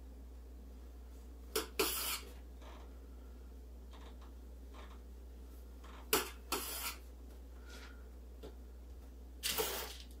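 Bread knife cutting through a rolled log of cinnamon-roll dough, three cuts. Each is a sharp tap and a short scrape as the blade goes through and meets the stainless steel table.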